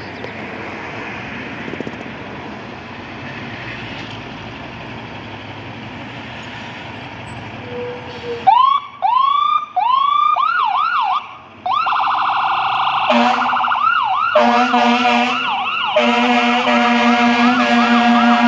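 Street noise, then a fire engine's electronic siren starts about halfway in, sweeping up and down in a fast yelp and briefly switching to a rapid warble. From about two-thirds in, the fire engine's air horn sounds in long, loud blasts over the siren.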